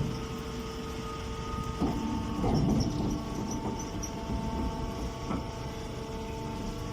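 Straw baling machine running with a steady mechanical hum, with a few scattered knocks and clatters.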